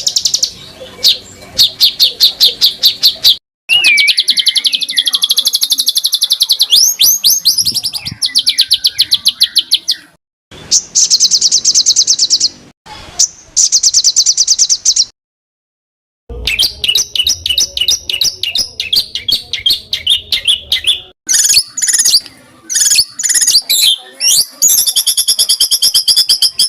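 Songbird songs spliced together into a cage-bird training track: fast, high trills and rapidly repeated chirps. Abrupt cuts and brief silences fall between the clips, the longest about a second just past the middle.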